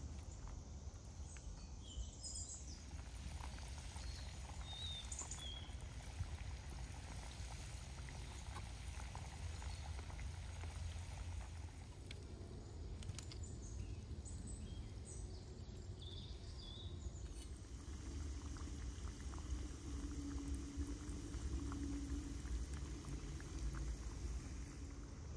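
Chickpea falafel patties frying in a pan of hot oil over a wood fire, sizzling steadily, with a few short bird chirps and a low rumble underneath.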